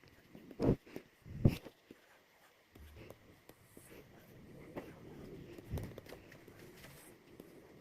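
Two dull thumps, the first less than a second in and the second about a second and a half in, followed by faint, uneven low noise with a few softer knocks.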